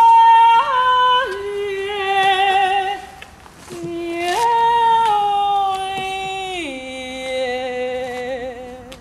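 A woman's voice singing without words: long held notes with a wavering vibrato that step and slide downward in pitch, with a short break about three seconds in.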